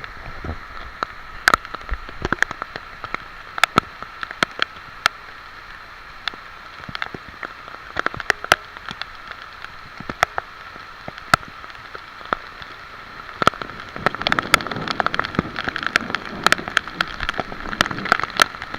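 Heavy rain falling: a steady hiss with large drops tapping irregularly close by, the taps coming thicker from about fourteen seconds in.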